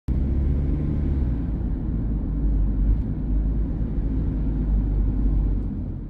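Steady low rumble of a moving car, engine and road noise, beginning to fade out near the end.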